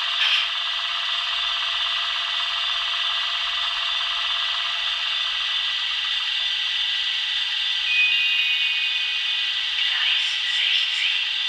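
Sound-decoder audio from model Swiss electric locomotives (SBB Ae 6/6 and Re 6/6): a steady electric whine and hum of traction motors and blowers, with a short high tone about eight seconds in.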